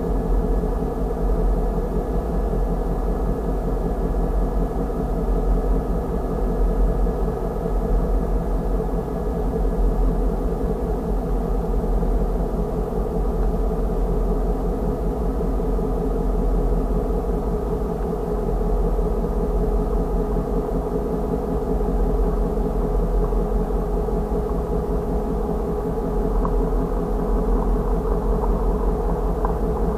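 An idling engine giving a steady, unchanging low drone with a constant hum, heard from inside a parked vehicle.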